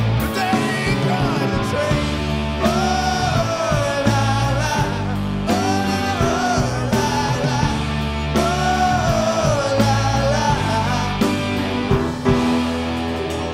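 Live rock band of electric guitars, bass guitar and drums playing loud and steady, with the lead singer holding three long, wavering sung notes over it.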